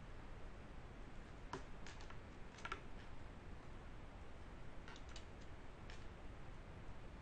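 Faint computer keyboard keystrokes and clicks over a steady low hiss: a handful of taps about one and a half to three seconds in, then a few more around five to six seconds in.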